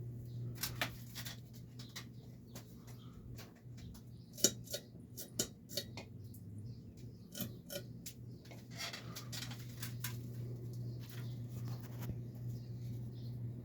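Emerson K55 Heatfan ceiling fan's big motor running with a steady low hum, with scattered irregular clicks and squeaks over it.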